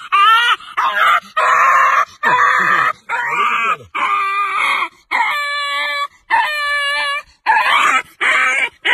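A dog whining in a string of drawn-out, high-pitched cries, about one a second. Some cries bend up and down in pitch and others are held level.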